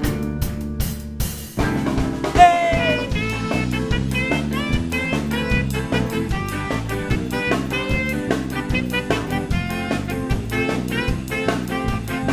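Instrumental intro of a band song: a drum kit keeps a steady beat under pitched instrument lines, and the full band comes in about two seconds in.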